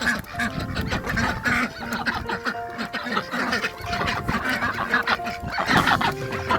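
A flock of backyard poultry clucking and calling in many short, overlapping calls, over soft background music.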